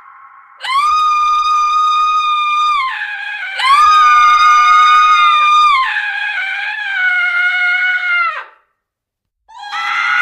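A woman screaming as a horror sound effect: two long, high, steadily held screams, then a lower wavering one that trails off, and after a brief silence another scream begins near the end.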